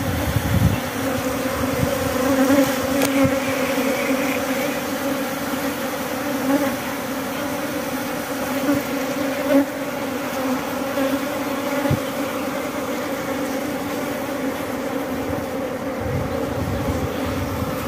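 Many honey bees buzzing around cut honeycomb in a steady, continuous hum.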